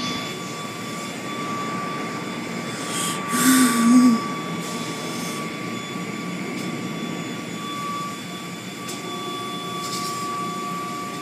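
Automatic car wash machinery running: a steady rushing noise with a constant high whine over it.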